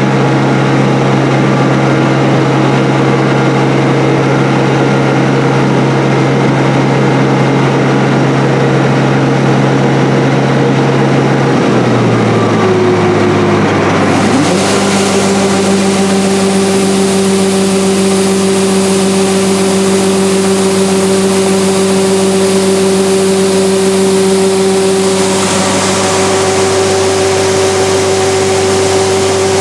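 International 815 combine running steadily while harvesting corn: a constant machine drone with several steady tones. About twelve seconds in, the tones drop and settle at a new pitch, and a brighter hiss joins about two seconds later.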